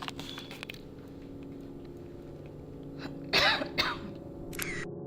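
A woman with a cold coughing: two coughs about three and a half seconds in, the first longer than the second.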